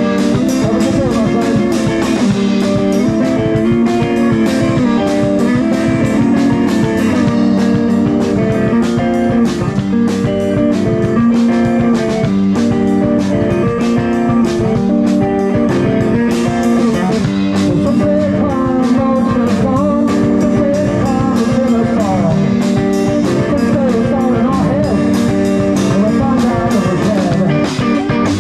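Guitar-led blues-rock music with a steady beat and some singing.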